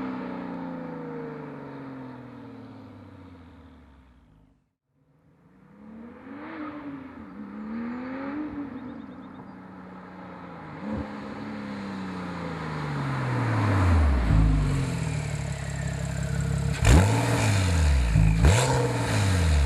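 Porsche 997.2 Turbo's 3.8-litre twin-turbo flat-six through Fabspeed Maxflo mufflers, driving. Its note falls in pitch and fades away, then after a short break it returns, rising and falling as it revs, and grows louder. A few sharp cracks come near the end.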